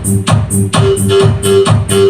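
Electronic dance music with a steady beat about two a second and heavy bass, played loud through a two-way speaker system during an equalizer sound test.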